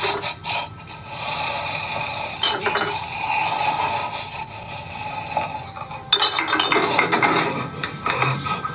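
Horror film soundtrack: scraping, rasping and clinking sound effects, getting suddenly louder about six seconds in.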